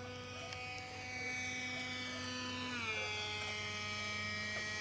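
Electric motor and propeller of a small foam RC airplane whining overhead, its pitch stepping down about three seconds in and then holding steady.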